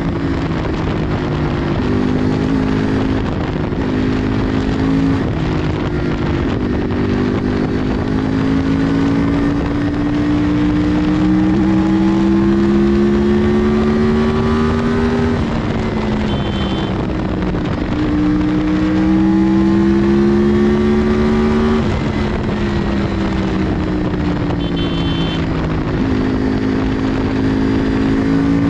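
Yamaha R1 crossplane inline-four with a Toce aftermarket exhaust, ridden on the road. The engine pitch climbs slowly under acceleration and drops back sharply twice, with wind rushing past the microphone.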